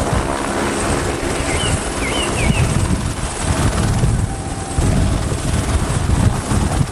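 Single-engine turbine helicopter of the AS350 Écureuil type running on the ground with its main rotor turning: rhythmic rotor blade chop over a steady high turbine whine.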